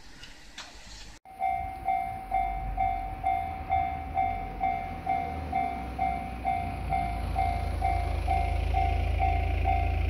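Japanese level-crossing warning bell ringing, an electronic ding repeating nearly twice a second, starting about a second in. Underneath, a low rumble builds in the second half as a train approaches.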